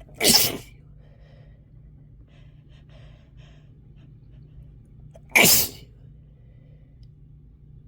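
Two sharp, loud sniffs through a congested, itchy nose, about five seconds apart.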